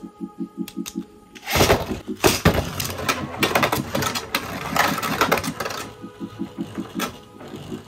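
Two Beyblade Burst spinning tops launched into a plastic stadium with a loud burst about a second and a half in, then spinning and clashing, with repeated sharp clicks and clatter as they strike each other and the stadium wall.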